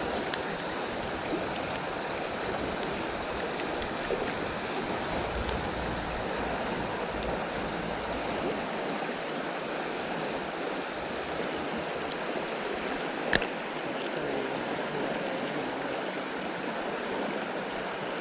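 River water flowing and rushing steadily around a wading angler, with one sharp click about thirteen seconds in.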